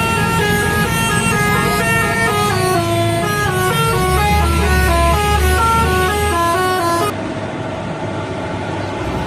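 Bus telolet horn playing a rapid tune of short stepping notes over the low rumble of the bus engine. The tune cuts off suddenly about seven seconds in, leaving engine and road noise.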